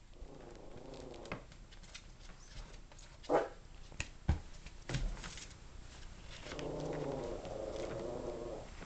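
Yorkshire Terrier puppies play-growling as they wrestle: a short growl at the start and a longer, louder one from about six and a half seconds in. Between them come a brief higher call about three seconds in and a few sharp knocks.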